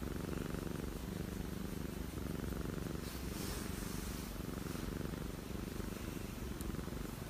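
Domestic cat purring close to the microphone, a steady fine rumble.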